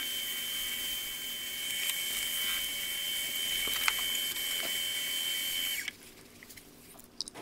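Woodturning lathe running with a steel ball peen hammer head spinning in its chuck while it is sanded with fine wet-and-dry paper: a steady motor whine with a hiss of abrasive on steel. It cuts off suddenly about six seconds in as the lathe is switched off, leaving a few faint clicks.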